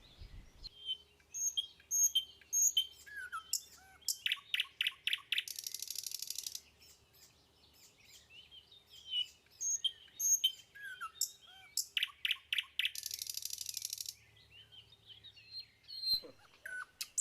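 Birdsong: chirps, a quick trill and a buzzy rattle, the whole sequence heard twice about eight seconds apart.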